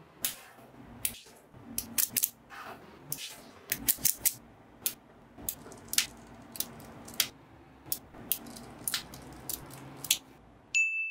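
Small magnetic balls clicking sharply against each other, one after another at irregular intervals, as they are snapped into place. Near the end a single bright ding tone rings out.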